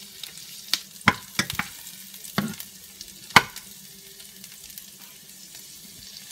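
Onion and crushed garlic sizzling in melted butter in a hot frying pan, with a metal slotted spoon scraping and clicking against the pan as the garlic is squished. The few sharp clicks fall in the first half, the loudest about three and a half seconds in.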